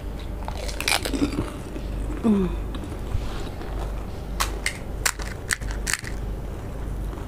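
Crisp fried panipuri (fuchka) shells crackling: sharp cracks as the hollow puris are poked open with fingers and bitten, with several cracks in quick succession from about four to six seconds in. A brief hummed voice sound about two seconds in.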